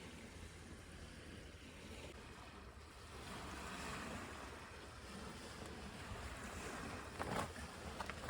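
Outdoor noise of wind and water, swelling slightly partway through, with a few sharp clicks near the end.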